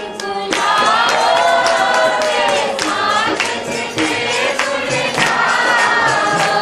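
A group of voices singing a Hindi devotional bhajan together, with sharp percussive beats behind them.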